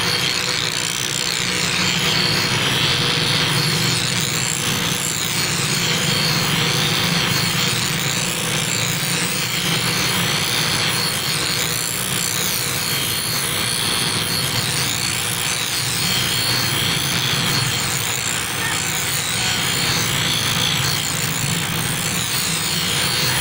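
Meat cleaver blade held against a bicycle-driven grinding wheel: a steady, unbroken grinding scrape of steel on the spinning stone.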